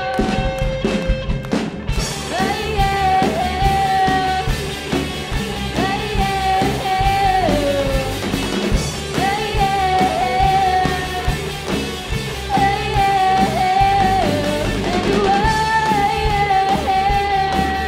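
Live rock band playing: electric guitars, bass and drum kit under a girl's lead vocal that holds long, wavering notes. The cymbals and full band come in about two seconds in.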